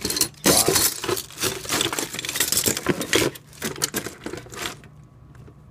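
Rummaging through a box of loose fire alarm parts: small metal and plastic pieces clinking and rattling, dying down near the end.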